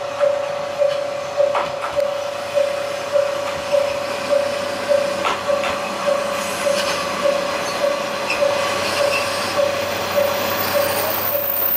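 A level-crossing warning bell rings steadily as a single-car diesel railcar rolls in, with about one and a half to two strokes a second on one pitch, stopping near the end. Wheel clicks over rail joints sound underneath, and the railcar's diesel engine hum rises at the very end.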